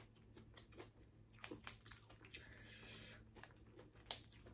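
Faint eating sounds: a few scattered clicks and crackles of king crab shell being picked at and chewed.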